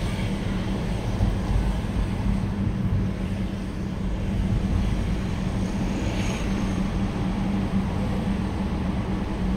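Car engine and tyre rumble, heard from inside the car while driving slowly through town streets: a steady low drone with a constant hum.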